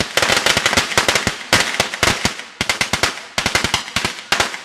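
Firecrackers popping in a fast, irregular string: dozens of sharp cracks in quick succession, with a couple of brief lulls.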